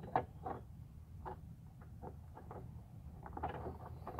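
Faint, scattered clicks and light taps from hands handling parts and wiring, a second or so apart, with a small cluster near the end over a low steady hum.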